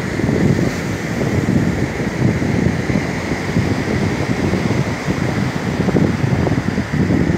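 Wind buffeting the microphone, with ocean surf washing behind it.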